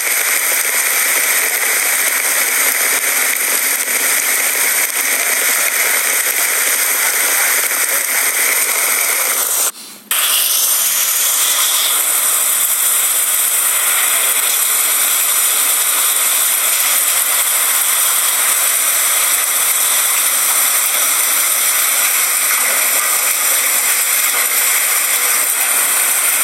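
Heavy rain and strong wind: a loud, steady rushing noise, broken by a brief dropout about ten seconds in.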